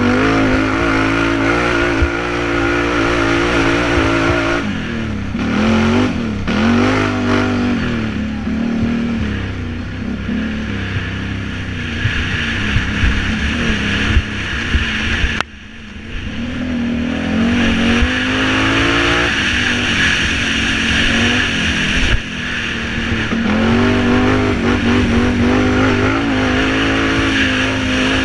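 Can-Am Renegade 800R quad's V-twin engine revving up and down hard as it is ridden over a rough dirt track. The throttle snaps shut about halfway through and the engine dips before pulling again, with a few short knocks along the way.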